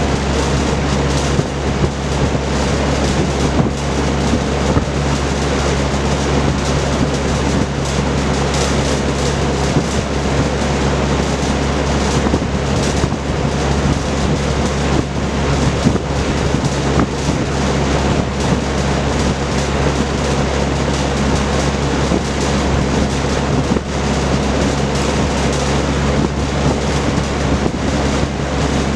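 Vintage Kenmore Roll-A-Matic 20-inch box fan with a four-blade propeller running steadily: a loud, even rush of air over a low motor hum.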